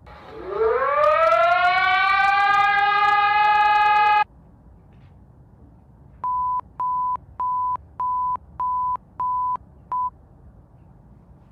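Emergency alert alarm: a siren-like tone winds up in pitch, levels off and cuts off sharply about four seconds in, followed after a pause by seven short, evenly spaced beeps at one steady pitch, about two a second.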